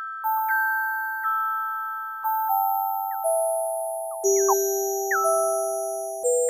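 Electronic chiptune-style music made with the Nanoloop phone app: a simple G major pentatonic melody of plain sine-like tones. Each note begins with a quick downward pitch blip and then fades, at about one and a half notes a second, with the notes overlapping.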